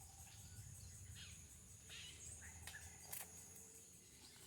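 Near silence: faint woodland ambience with a steady high insect drone and scattered faint bird chirps, and a couple of light clicks about three seconds in.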